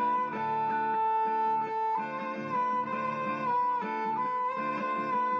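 Background music: a slow melody on bowed strings over plucked guitar.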